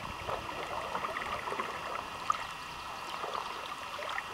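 Water trickling and splashing lightly around a kayak being paddled, with one sharp tap about two seconds in.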